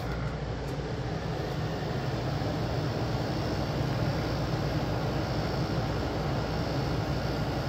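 8000 BTU portable air conditioner running with a steady fan noise; right at the start its compressor kicks in and adds a low hum, the unit's power draw jumping from about 214 to about 850 watts.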